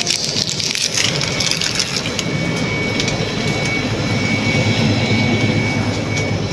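Shop ambience: a steady rumble and hiss with rustling handling noise. A faint steady high whine sets in about two seconds in.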